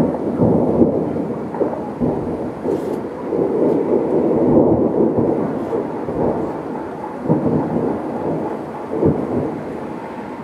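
Fireworks exploding in a rapid barrage, the booms running together into a continuous rumble, then thinning in the second half to a few separate bangs.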